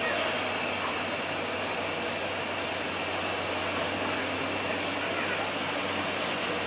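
Mercedes-Benz intercity bus's diesel engine running steadily as the bus creeps slowly through a tight mountain bend, with truck engines behind it.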